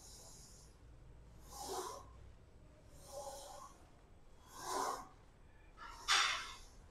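A man's forceful breaths while pushing a heavy leg press, five in a row about every second and a half, one per repetition; the last is the loudest.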